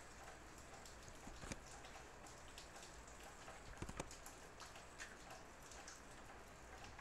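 Near silence: faint steady hiss with a few soft clicks, one about a second and a half in and a couple about four seconds in.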